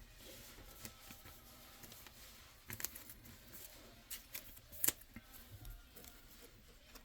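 Faint rustling and light clicks of Pokémon trading cards being handled and shuffled, scattered through, with a few sharper clicks about midway.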